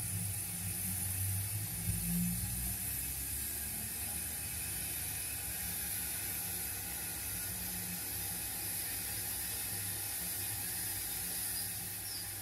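A 7mm-scale (0 gauge) model steam locomotive running slowly along the track, its electric motor and gears giving a steady low whirring hum that is a little louder in the first couple of seconds.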